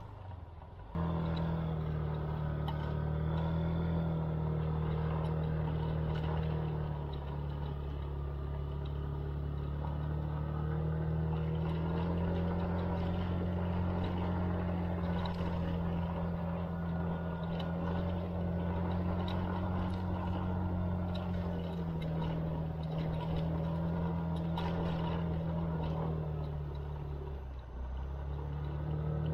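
SYM KRN scooter's single-cylinder engine running steadily while riding, its pitch rising and falling a little with the throttle. It starts up abruptly about a second in and dips briefly near the end.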